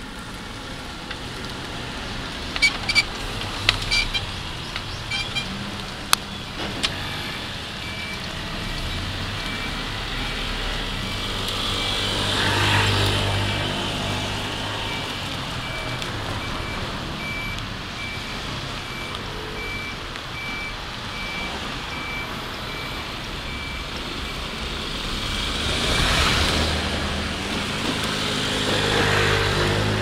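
Japanese railway level-crossing alarm ringing, a steady electronic ding repeating at an even rhythm, after a few sharp clicks in the first seconds. Train noise swells up twice over it, louder around a third of the way in and again near the end.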